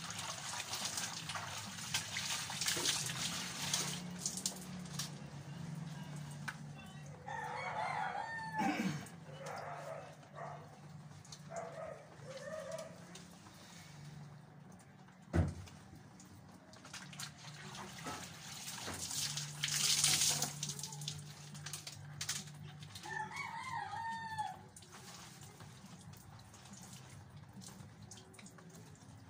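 A rooster crowing twice, once about eight seconds in and again about twenty-three seconds in, each a single call of a second or two. Between them come splashy noises from hand-washing laundry and a single sharp knock midway.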